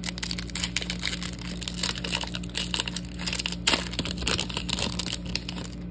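Plastic wrapper of a Topps soccer card pack being torn open and crinkled by hand: a dense run of crackling rustles, with the loudest rip about two-thirds of the way in. A steady low air-conditioner hum runs underneath.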